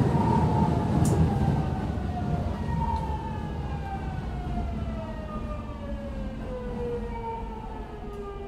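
Hitachi GTO-thyristor VVVF inverter of a Kobe Municipal Subway 1000 series train whining, several tones gliding steadily down in pitch as the train slows under electric braking. The low rumble of the running gear fades as the speed drops.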